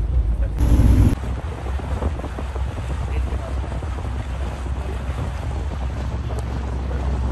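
Yacht under way: the engine's steady low rumble under wind buffeting the microphone and the wash of water along the hull. There is a short louder patch about a second in, then the sound stays even.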